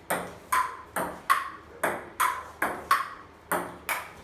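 Table tennis rally on a wooden dining table: the ball bouncing on the tabletop and struck back and forth by paddles, a quick, steady run of sharp ticks, about two or three a second.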